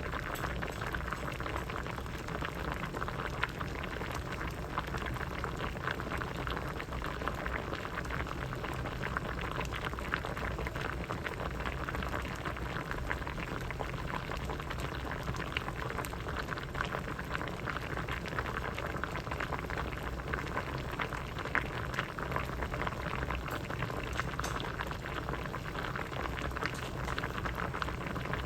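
Pot of vegetable soup boiling steadily: a continuous bubbling and popping of many small bursts at the surface.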